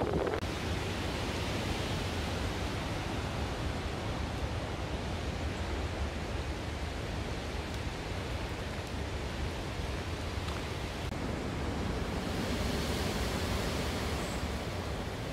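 Steady outdoor background hiss with a faint low rumble beneath, growing a little brighter about twelve seconds in.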